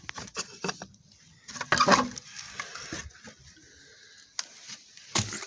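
Footsteps crunching and rustling on dry leaves and twigs, in irregular crackles, with one louder rustling crunch about two seconds in.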